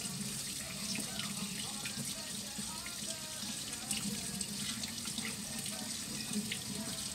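Water running steadily from a kitchen tap into a sink.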